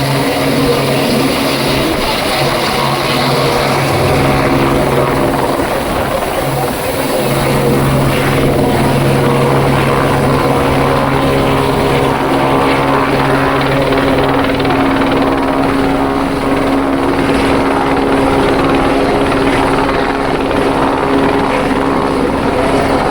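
Helicopter flying low overhead, its rotor and turbine giving a loud, steady drone, with voices of a crowd beneath it. A lower tone in the drone fades out about two-thirds of the way through.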